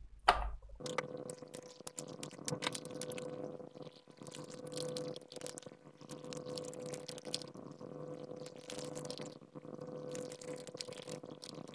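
Aluminum foil tape being handled, torn and pressed down by hand, crinkling and crackling irregularly, over a faint steady hum.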